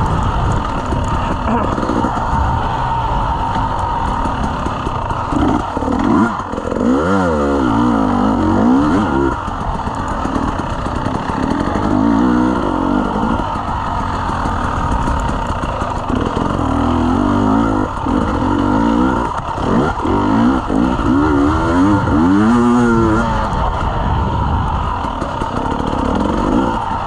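Dirt bike engine being ridden hard, revving up and down repeatedly with several sharp climbs and drops in pitch as the rider works the throttle through tight turns.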